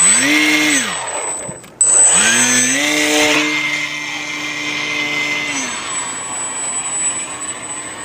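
A small electric motor whining up to speed and winding back down twice: first a short rev, then a longer run held steady for about three seconds before it spins down.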